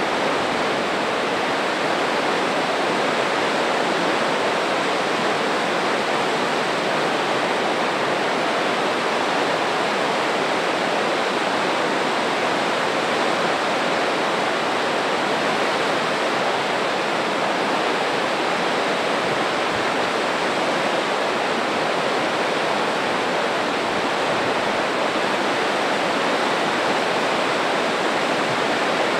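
Spokane Falls: the Spokane River pouring over the falls and rushing through whitewater rapids, a steady, unbroken rush of water.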